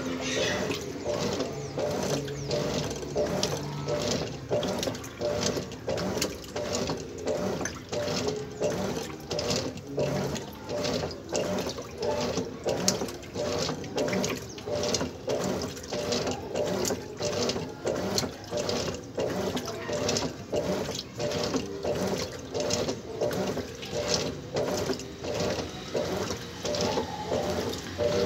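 Top-load washing machine agitating a load of clothes in water: the agitator churns back and forth, swishing and sloshing in a regular rhythm of about three strokes every two seconds.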